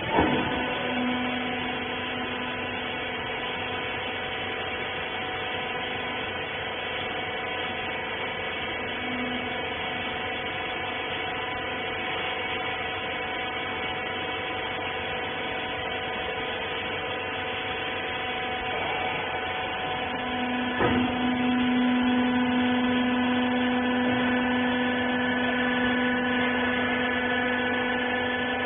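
Hydraulic rag baler's electric motor and pump running with a steady hum. A sharp click comes at the start and another about two-thirds of the way through, after which the hum grows louder.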